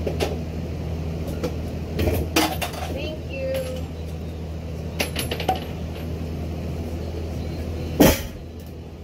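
Scattered clicks, knocks and small metallic clinks of hand-tool work and loose hardware, over a steady low hum, with one louder knock about eight seconds in.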